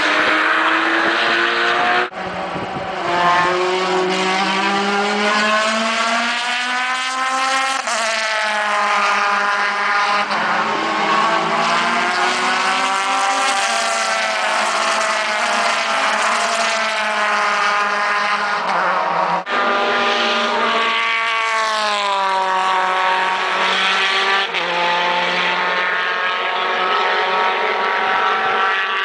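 Race car engines at speed, their pitch climbing and dropping repeatedly through gear changes as cars pass. The sound breaks off abruptly twice, about two seconds in and a little before twenty seconds.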